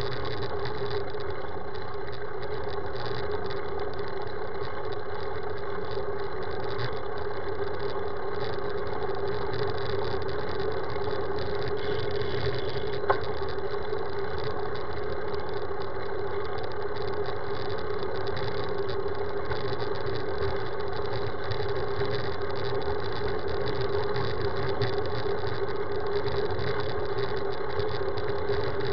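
Steady road rumble with a constant hum from a road bicycle rolling on tarmac, heard through a camera mounted on the bike. One sharp click about halfway through.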